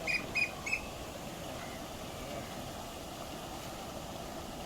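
A bird calling a quick run of short, high chirps that stops within the first second, over a steady low background rumble.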